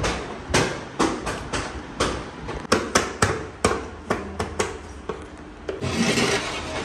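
A run of sharp, irregular knocks, two or three a second, that thin out and give way to a noisy haze near the end.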